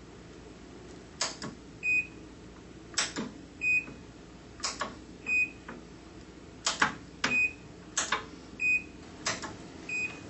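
Sunstone CD100SPM capacitive-discharge micro spot welder firing six lap welds in 3 mil stainless steel sheet through a pressure-actuated single-probe hand piece at 50 ws. Each weld is a sharp snap, followed under a second later by a short beep from the welder.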